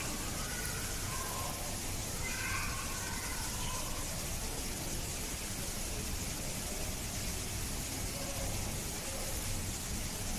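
Steady background hiss, with faint distant voices in the first few seconds.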